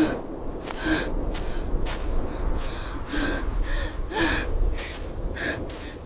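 A woman gasping and panting heavily: short, strained breaths about every half second, from the exertion of carrying a child on her back, over a low rumble.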